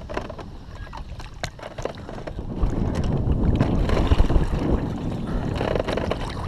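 Wind buffeting the microphone out on the water from a kayak, a low rumble that grows louder about two and a half seconds in, with scattered small knocks.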